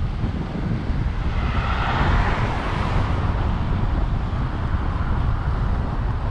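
Wind buffeting the microphone, with a car passing on the bridge road about two seconds in, its tyre and road noise swelling and then fading.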